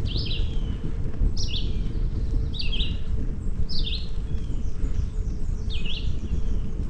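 A songbird singing short, repeated phrases about once a second, over a steady low rumble of wind on the microphone and tyres rolling on the road while cycling.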